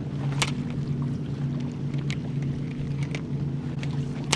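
Steady hum of a bass boat's electric trolling motor, with a few sharp clicks, the loudest about half a second in and at the end.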